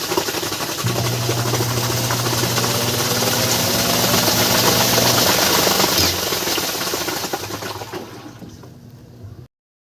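Samsung Diamond Drum washing machine running a test spin: a steady rushing of the drum and water with a low hum, checking whether the spin noise from trapped coins is gone. The sound swells, then dies away over the last few seconds and cuts off.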